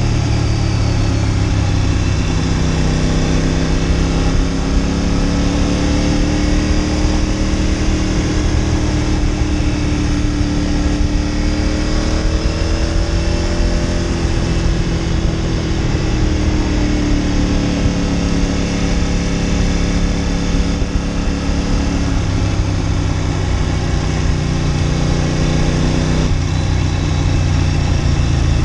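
Ducati Monster 900's air-cooled V-twin engine running under way on a mountain climb. Its note slowly rises and falls with the throttle and drops lower near the end.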